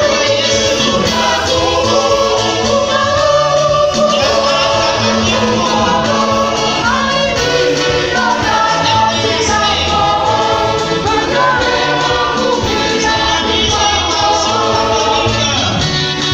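Parish choir singing together in full voice, many voices moving in pitch over steady low bass notes.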